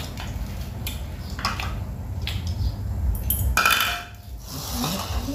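Chopsticks and spoons clinking against ceramic bowls and plates while people eat, a few light clicks, then a louder ringing clink of a dish about three and a half seconds in, over a low steady hum.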